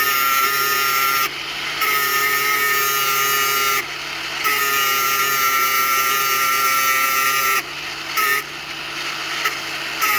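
A power tool working metal, run in several bursts of a few seconds each. Each burst is a steady whine over a hiss, starting and stopping abruptly, with a few short blips near the end.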